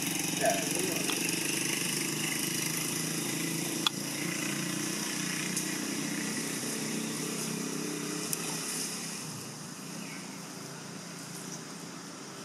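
A steady low engine drone under a high hiss, easing off about ten seconds in, with one sharp click about four seconds in.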